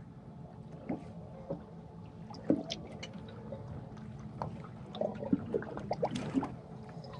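Gentle water lapping and trickling against a boat's hull, with scattered small clicks over a faint steady low hum.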